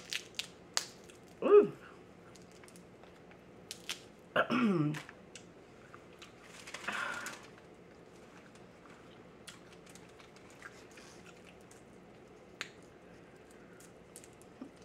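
Crab legs being cracked and picked apart by hand: scattered sharp shell cracks and clicks. There are two short hums with falling pitch, about one and a half and four and a half seconds in, and a brief rustling burst around seven seconds in.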